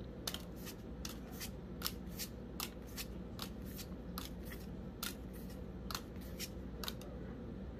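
Pokémon trading cards being flipped through one at a time in the hand, each card moved to the back of the stack with a short click. The clicks come irregularly, about three a second.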